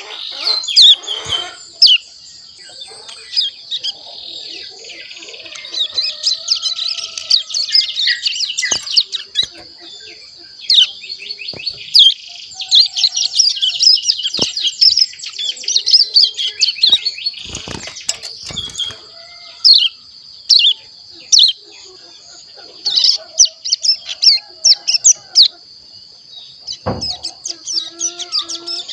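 Young ciblek gunung (hill prinia), a little over a month old, twittering in a fast, continuous stream of high chirps: the soft practice song (ngeriwik) of a juvenile learning to sing. A few sharp clicks and knocks break in, and there are low bumps about two-thirds of the way through and near the end.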